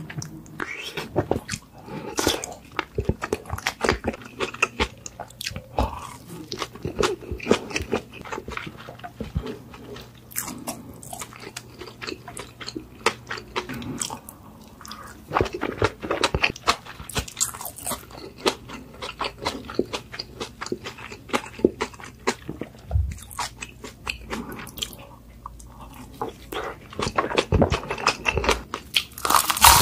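Close-miked eating sounds of a person biting into and chewing food, with many short clicks and crunches, and a louder burst of crunching at the very end.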